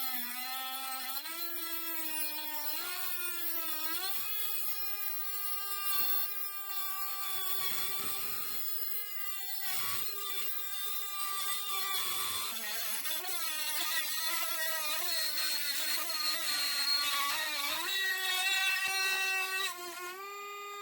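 DuroFort 8V cordless rotary tool spinning a cutoff wheel through the stripped end of an Allen wrench: a high motor whine whose pitch dips and recovers again and again as the wheel bites into the metal, over a hissing grind from the cut.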